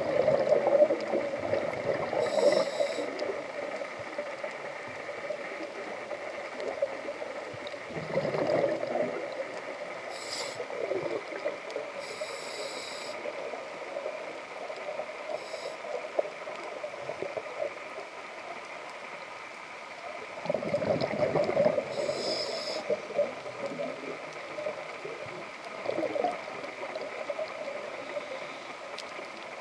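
Scuba diving underwater: a diver breathing through a regulator, short hisses of inhalation and gurgling rushes of exhaled bubbles, the biggest about eight seconds in and again around twenty-one seconds in.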